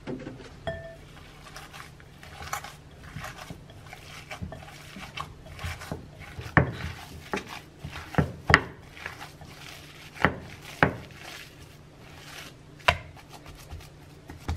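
A hand kneading and squishing ground-meat meatball mixture in a glass mixing bowl, with irregular sharp knocks as fingers and knuckles hit the glass, loudest through the middle.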